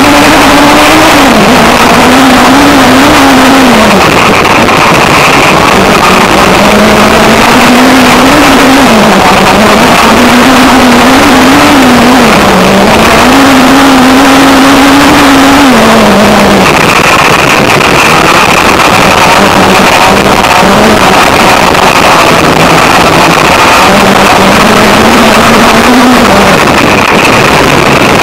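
Engine of a Suzuki-powered prototype 1600 cross buggy heard onboard at racing pace, very loud. The engine note climbs and drops again and again as the driver accelerates, shifts and lifts, over dense wind and gravel noise.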